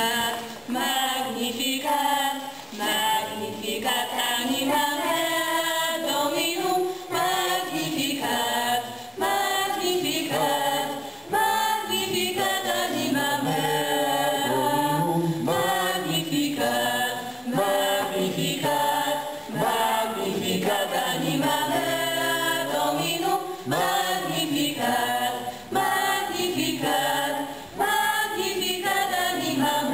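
Choir singing a hymn in phrases, with short breaks between them.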